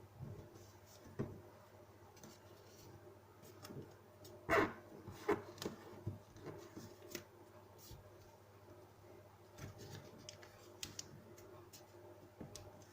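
A sheet of origami paper being folded and creased by hand: scattered soft crinkles and taps, the loudest about four and a half seconds in.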